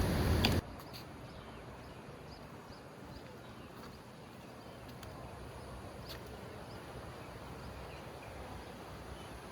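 A loud rushing noise cuts off abruptly about half a second in. Faint outdoor background follows, with small high chirps scattered through it and a few soft clicks.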